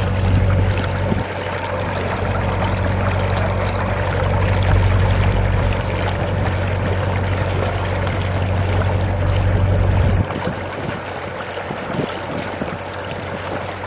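Narrowboat engine running steadily under rushing water and wind noise. The engine hum drops out suddenly about ten seconds in, leaving the water and wind.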